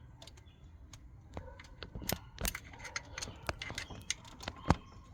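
Metal tools and engine parts clicking and tapping against each other as they are handled, a series of short sharp clicks that come thicker in the second half.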